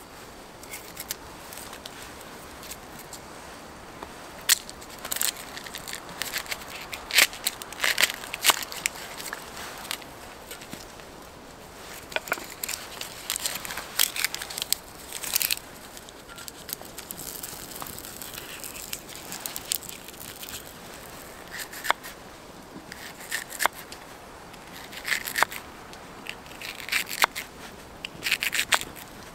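Knife cutting a red onion on a wooden board: crisp crunches as the blade goes through and knocks of the blade on the board, with a spell of onion skin being peeled off by hand partway through. A small wood-burning stove crackles alongside with scattered sharp pops.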